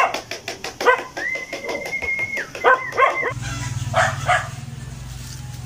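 A dog yipping again and again, with one high, drawn-out whine between the yips. About three seconds in, a steady low hum takes over, with a couple more short calls.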